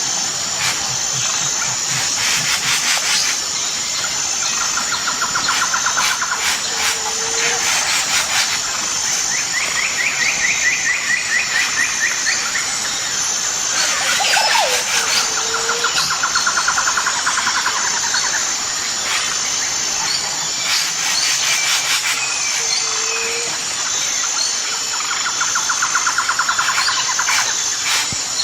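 Tropical rainforest ambience: a steady high insect drone throughout. Over it come repeated trilling calls lasting two to three seconds each, a short low note about every eight seconds, and several spells of rapid clicking.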